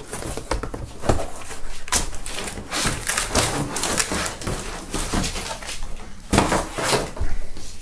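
A cardboard shipping carton being handled and emptied: rustling and scraping cardboard with several dull knocks and thumps at irregular moments.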